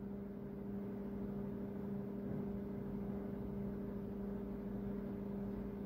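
A steady low hum at two even pitches over faint hiss: the room's background noise.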